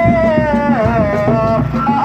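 Sundanese reak ensemble music: dogdog drums beating steadily under a high, wavering melody line with ornamented slides between notes.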